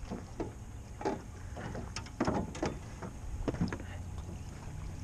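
Electric trolling motor humming steadily on a small fishing boat, with water lapping and a scattered run of short knocks and clicks.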